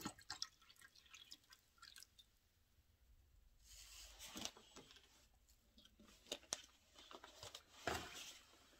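The last of the water from a plastic bottle trickling into a small camping pot, stopping about half a second in. Later come faint crinkling and a few light knocks from handling the plastic bottle.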